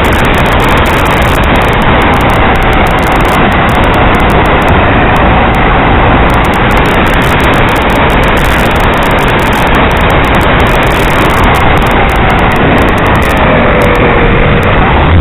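RC airplane in flight heard from its onboard camera: a loud, steady rush of airflow over the camera with a faint motor whine that drifts slowly in pitch.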